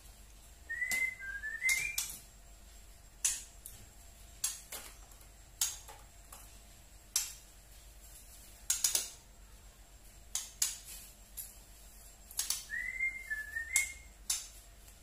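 Juvenile white-rumped shama (murai batu trotol) giving its 'tretek' call: sharp single tek notes at irregular intervals, with two short phrases of soft gliding whistles, one about a second in and one near the end.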